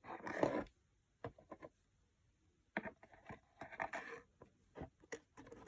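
Scattered light taps, clicks and short scraping rustles of a cardboard shoebox coin ramp being handled while a coin is tried down it, a few seconds apart.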